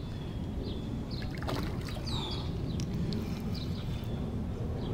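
Outdoor ambience of a pond edge: a steady low rumble of wind and handling noise on a chest-worn microphone, with a few faint clicks and several short, high bird chirps that fall in pitch.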